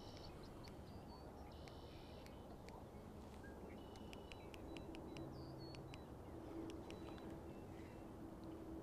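Quiet outdoor ambience with faint scattered bird chirps and ticks, and a low steady hum that comes in about halfway through.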